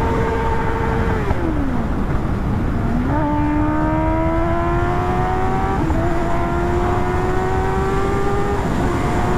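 Kawasaki ZX-10R inline-four superbike engine under way, with heavy wind rumble. The engine note holds steady, drops as the throttle is eased a little over a second in, then climbs steadily under acceleration. The pitch steps down briefly at two upshifts, near 6 seconds and near the end.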